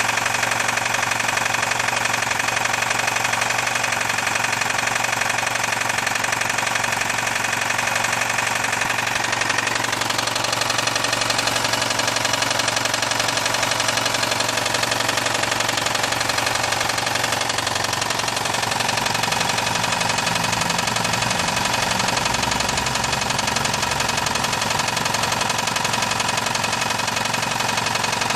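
VAZ-2109/2115-family Lada four-cylinder petrol engine running with a continuous rapid knock, which the owner takes for a knocking connecting rod (a worn big-end bearing). The engine note shifts slightly past the middle.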